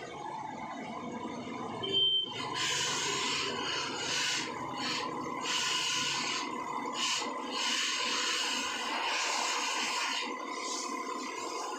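Water spraying from a hose onto a car's body and wheel, in spurts broken by short pauses, over a steady thin whine. A brief high tone sounds about two seconds in.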